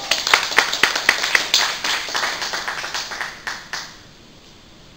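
Audience applauding: many separate hand claps that thin out and stop a little under four seconds in.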